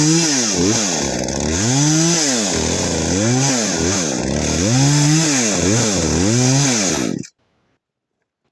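Poulan two-stroke chainsaw cutting firewood into blocks, its engine pitch rising and falling again and again as it works through the wood. The sound stops suddenly about seven seconds in.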